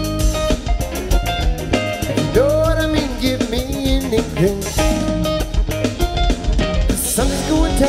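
Live band playing an instrumental passage: drum kit, electric guitars and keyboards, with a lead line that bends up and down in pitch in the middle.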